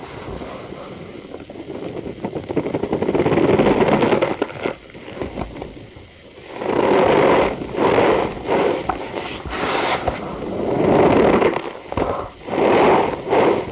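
Cornstarch powder being pressed and squeezed, giving squeaky, crackling crunches. The sound comes in swells: one long one in the first half, then several shorter ones close together in the second half.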